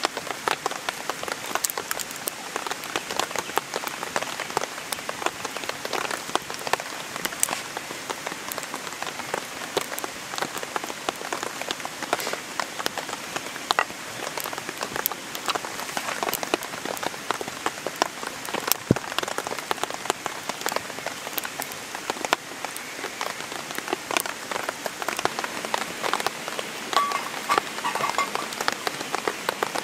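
Steady rain falling, with many separate drops tapping close by.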